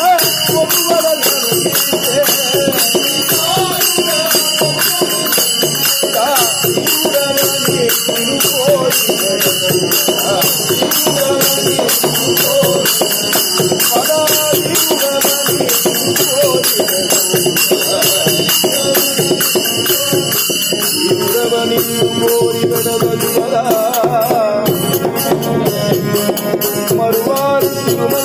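Devotional bhajan music: voices singing a Vaishnava hymn while small hand cymbals jingle in a fast, steady beat.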